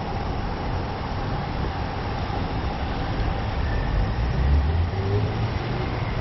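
Steady urban background noise with a low rumble that swells about four seconds in and a faint steady hum.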